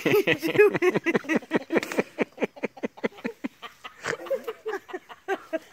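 Hearty laughter: a fast, unbroken string of loud 'ha' sounds that eases off a little after about four seconds.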